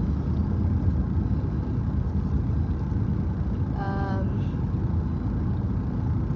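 Steady low rumble of road and engine noise inside a moving car's cabin, with a brief hummed voice sound about four seconds in.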